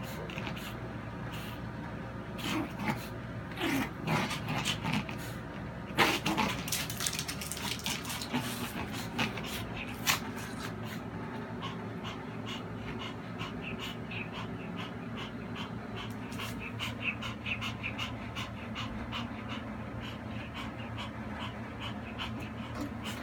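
Several knocks and rustles, the loudest a sharp knock about six seconds in, followed by a Pomeranian panting in a quick, even run of short breaths.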